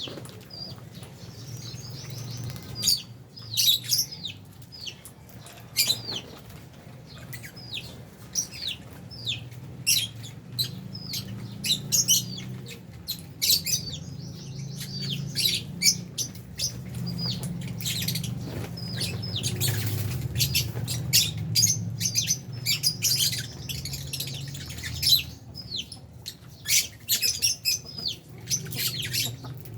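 A colony of Fisher's and albino lovebirds chirping: a continuous stream of short, sharp, high calls from many birds at once, over a steady low hum.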